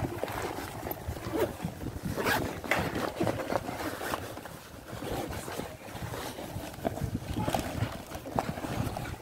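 Outdoor ambience of wind and water on a seaside jetty, broken by irregular knocks and rustles from a phone being handled and moved about.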